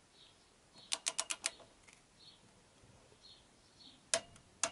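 Click-type torque wrench on a bracket bolt being tightened to 30 newton metres: a quick run of five ratchet clicks about a second in, then two sharp single clicks near the end as the wrench reaches its setting.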